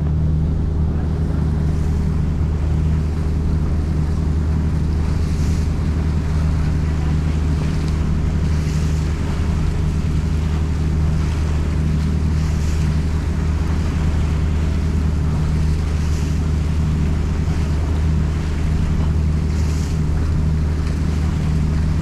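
Boat engine running steadily with a deep, even hum, over the rush of water along the hull, which flares into a brief higher hiss every few seconds.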